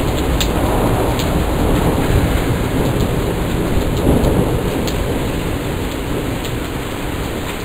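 Heavy thunderstorm rain with a low rolling rumble of thunder under it, swelling a few seconds in and easing off toward the end. A few sharp ticks stand out from the rain.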